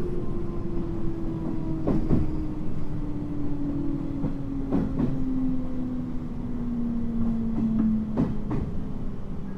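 Cabin running sound of a JR 719 series electric train. A steady drive whine slides slowly down in pitch as the train loses speed, over the rumble of the wheels. Double clacks come about every three seconds as the wheels cross rail joints on rough track.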